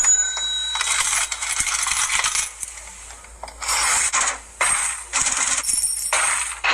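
Metal coins clinking and pouring in a run of separate bursts, with a short ringing tone from a coin right at the start.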